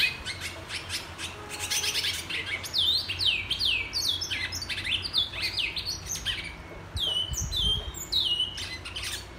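Caged bicudo (twa-twa) seed-finch singing: a run of quick, clear whistled notes, each sliding down sharply in pitch, coming in phrases that start a few seconds in.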